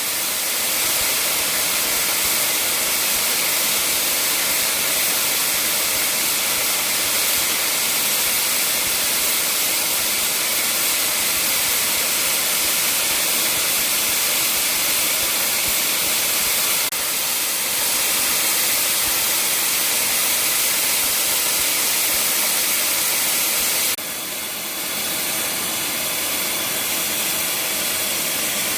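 Welding arc running on 9 mm steel plate: a steady, high sizzling hiss that dips briefly twice.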